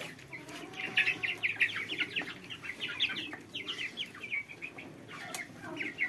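Young ducks and chickens feeding together: many quick, high peeps in rapid runs, with low clucking underneath.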